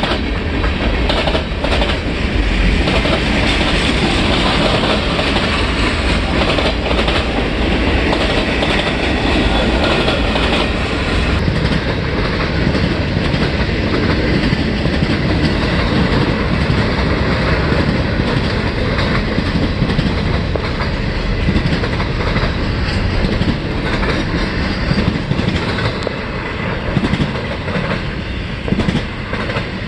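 CSX freight train's cars rolling past at close range: a steady loud rumble of steel wheels on rail with repeated clickety-clack clicks over the rail joints.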